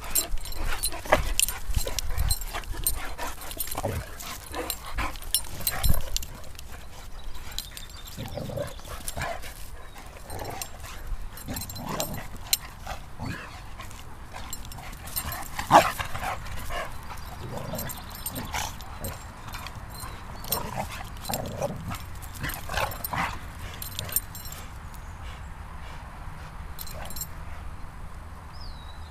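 An Akita and a boxer playing together, with short dog vocalisations and bumps scattered throughout, busiest in the first half; the loudest is a single sharp sound about sixteen seconds in.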